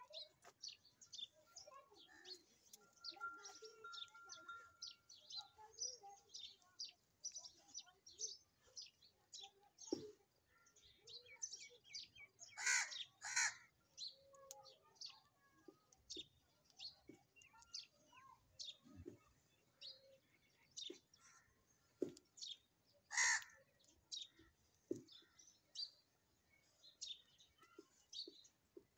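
Birds chirping outdoors: many short, high chirps all through, with louder harsh calls, two in quick succession about halfway through and one more a little later.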